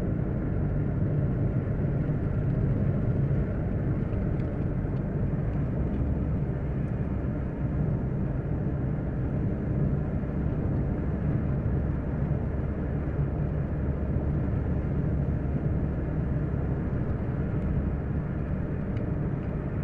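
Steady low rumble of a car driving along an asphalt highway, heard from inside the cabin: engine and tyre noise at an even cruising speed.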